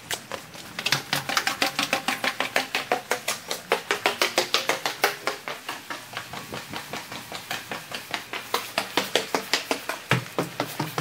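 Footsteps going down a flight of stairs, along a pedestrian underpass and up the stairs on the other side near the end, an even pace of about three to four steps a second.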